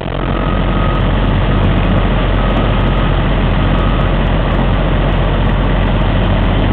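Backhoe's diesel engine running steadily and loud, with a strong low rumble. A faint high steady tone sounds three times, on and off, during the first few seconds.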